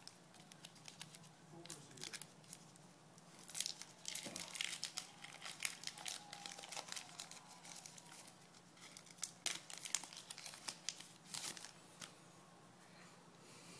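The wrapper of a 2011 Topps Gypsy Queen baseball card pack being torn open and crinkled by hand, in two spells of crackling, one about four seconds in and another around ten seconds in.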